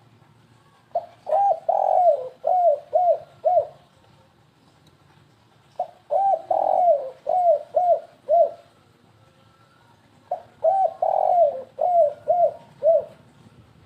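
Spotted dove (tekukur) cooing: three phrases, about four and a half seconds apart, each a quick, stuttering string of short falling coos.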